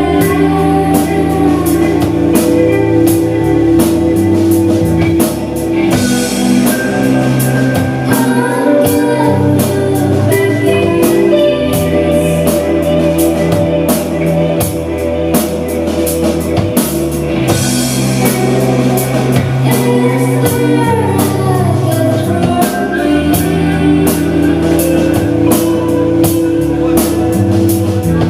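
Rock music played by a band: electric guitar, bass and drum kit at a steady beat.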